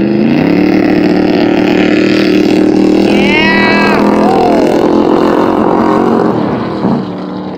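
Ice-racing car's engine revving up at the start and held at high revs under hard acceleration, easing off near the end.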